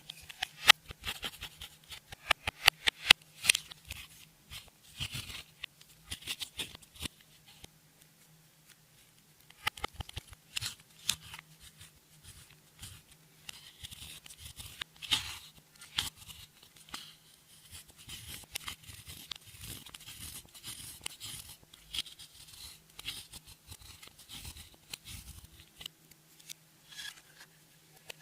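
Clear slime being kneaded and stretched by hand, giving rapid sticky clicks and crackling pops, with a short pause about eight seconds in.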